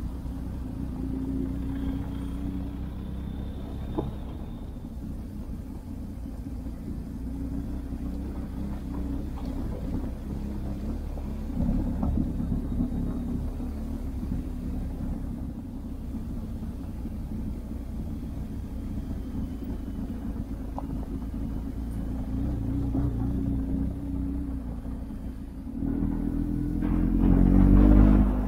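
Motorcycle engine running under way, its note shifting as the throttle changes. Near the end it revs up, rising in pitch to the loudest point.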